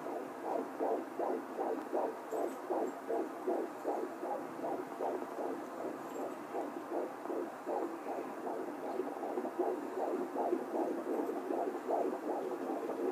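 Fetal Doppler picking up the heartbeats of twins at 14 weeks 6 days of pregnancy, with both hearts heard at once: a fast, even train of pulses, about three a second, through the Doppler's speaker.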